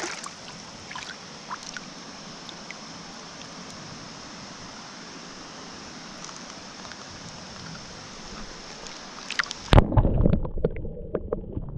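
Steady rush of stream water running over the riffles, with a few faint ticks. About ten seconds in, a sudden loud splashing and thumping close to the microphone breaks in.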